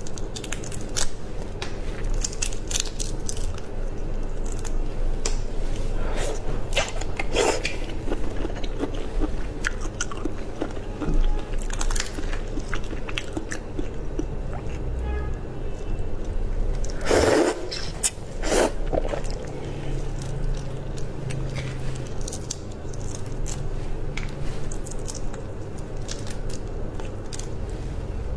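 Shell of a large red prawn crackling and snapping as it is peeled apart by hand close to the microphone, with scattered sharp clicks and a few louder snaps about two-thirds of the way through.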